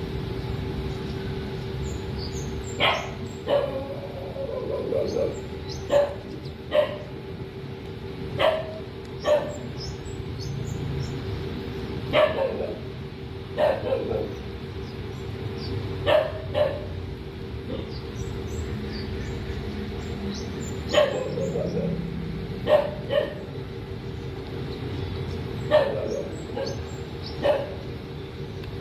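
A dog barking again and again, short sharp barks every second or two, often two in quick succession, over a steady low hum.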